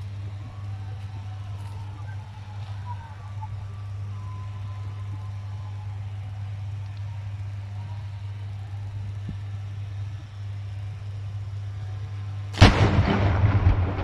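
Steady low electrical hum from grid-station equipment such as a transformer. Near the end a sudden loud bang cuts in, with a crackling rush that dies away over a second or so.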